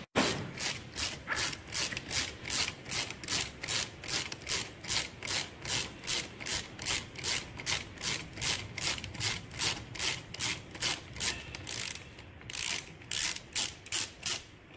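Hand ratchet wrench being worked back and forth to run off a long-threaded fastener, clicking in a steady rhythm of about three strokes a second. There is a short break near the end, then a few more strokes.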